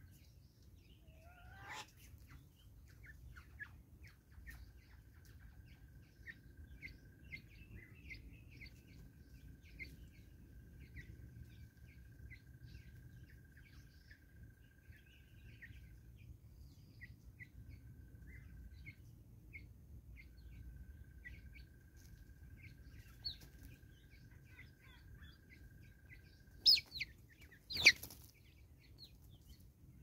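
Birds chirping and twittering: many short chirps, an upward-gliding whistle early on, and a steady high trill held for several seconds at a time. Near the end come two sharp, loud knocks a little over a second apart.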